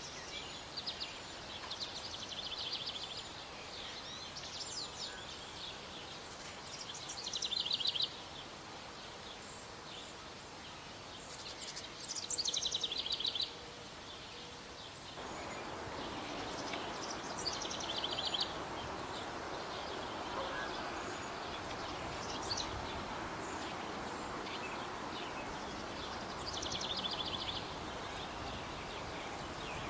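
A small songbird singing short, high, trilling phrases every few seconds, over a steady outdoor background hiss that gets louder about halfway through.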